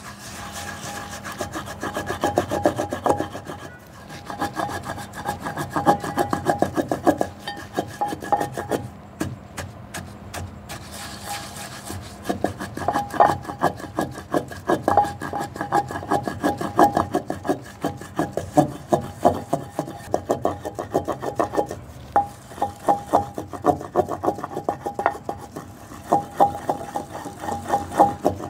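Wooden pestle grinding soaked poppy seeds in a terracotta kundi, the clay mortar: a grating, scraping rub in quick repeated strokes. It eases off briefly a couple of times.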